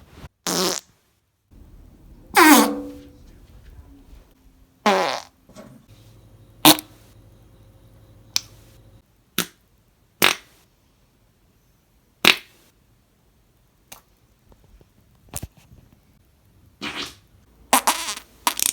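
A series of about a dozen separate human farts, one every second or so. Most are short sharp blasts. One a couple of seconds in is longer, with a falling pitch, and several come in a quick cluster near the end.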